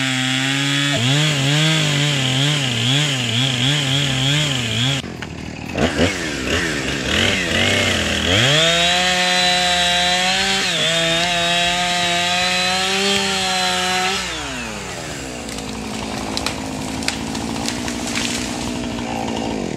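Two-stroke gas chainsaw cutting a pine trunk near the ground. Its engine pitch wavers as it bites, dips briefly, then revs up and holds high for several seconds before dropping back to idle about fourteen seconds in. Near the end come scattered cracks and snaps as the felled pine comes down.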